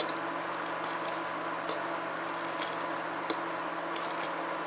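A spatula and ladle stirring hot milk in a stainless steel pot, with a few sharp clicks and soft scrapes of the utensil against the metal over a steady background hum.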